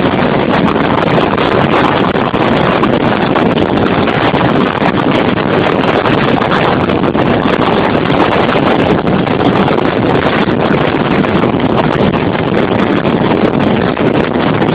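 Loud, steady rushing road and wind noise inside a car moving at speed, with wind blowing on the microphone.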